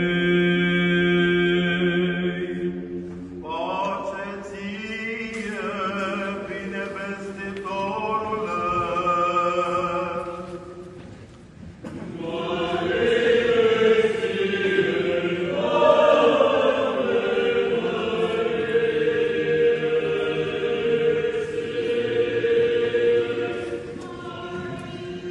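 Orthodox liturgical chant: a man's voice holds a long low chanted note for the first few seconds, then a choir sings, nearly stops for a moment about eleven seconds in, and comes back in louder.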